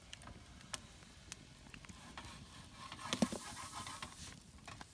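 Faint sizzling and scattered crackles from sausage and bacon frying in a pan and from a wood campfire burning, with a louder clatter about three seconds in.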